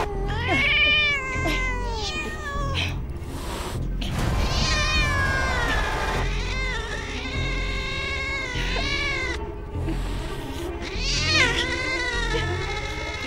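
Domestic cat meowing and yowling over and over: several drawn-out cries that rise and fall in pitch, one held for about three seconds midway, over a low droning music score.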